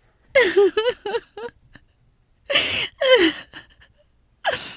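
A woman sobbing: three short bouts of broken crying with falling pitch, separated by brief pauses.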